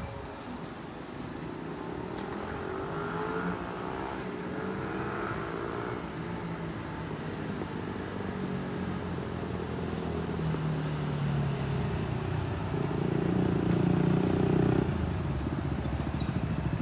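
Road traffic with motor vehicle engines: an engine revs up a few seconds in, then a steadier engine hum grows louder later on.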